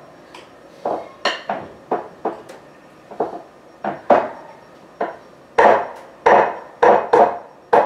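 Irregular clatter of sharp knocks and clinks, each with a short ring, from dishes and utensils being handled; the knocks come closer together and louder in the last couple of seconds.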